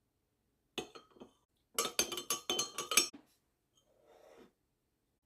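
A metal spoon clinking against a glass: a few light clinks about a second in, then a quick run of about half a dozen sharper clinks, as when stirring a drink. A fainter, softer sound follows near the end.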